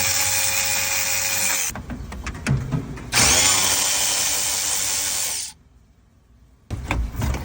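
Power drill-driver with a 7 mm socket spinning out dash screws in two runs. Each run rises in pitch as the motor spins up and drops as it stops. A few light clicks follow near the end.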